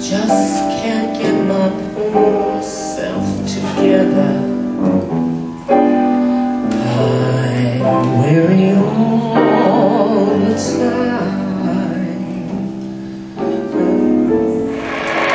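A woman singing a slow jazz standard to piano accompaniment. The piano plays sustained chords, and partway through she holds a long wavering note. Applause starts near the end.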